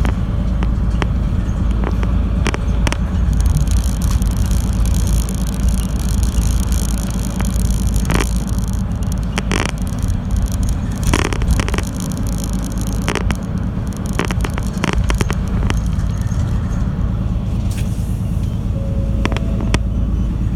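Route bus running along the road, heard from inside the passenger cabin: a steady low engine and road rumble with frequent short clicks and knocks. A hiss rises over it from about three seconds in and fades about twelve seconds in.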